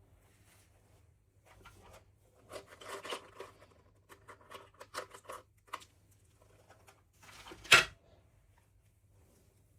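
Doll packaging being handled and opened by hand: a run of small plastic crackles, rustles and clicks, then one short, much louder crackle about three-quarters of the way through.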